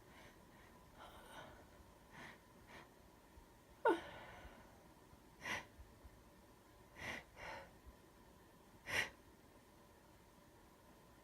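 A sick woman's sneeze about four seconds in, sudden and loud with a falling voiced tail, amid several short, sharp breaths before and after it.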